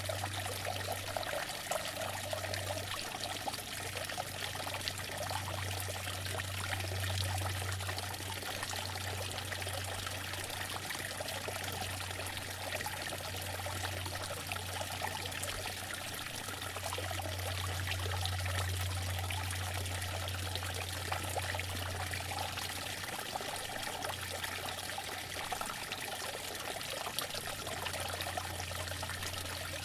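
Outdoor water fountain running: water splashing and trickling steadily, with a low rumble underneath that swells and fades.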